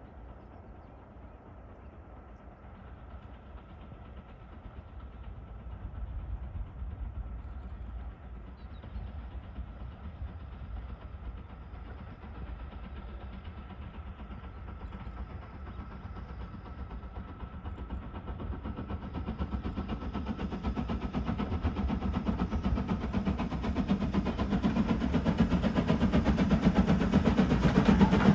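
Steam locomotive approaching with its train, its rapid exhaust beats and running noise getting steadily louder as it nears.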